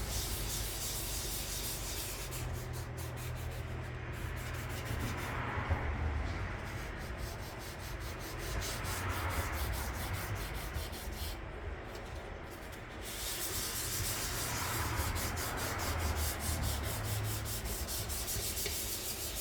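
Hand sanding of a primed 1958 Johnson outboard motor hood: sandpaper rubbing back and forth over the hood's surface in a continuous rasp that swells and eases with the strokes.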